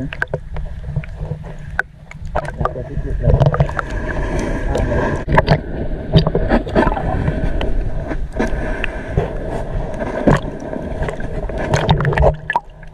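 Muffled water sloshing and gurgling around a camera held underwater, with scattered clicks and knocks throughout.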